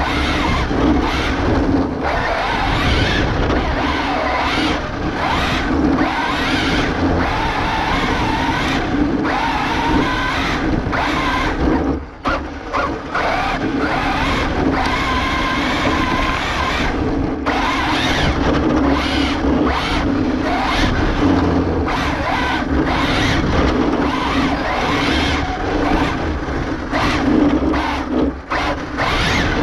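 Arrma Infraction 6S RC truck running hard on asphalt, its brushless motor and drivetrain whining over rough tyre and road noise, picked up by a camera mounted on the truck. The sound drops briefly about twelve seconds in, then carries on.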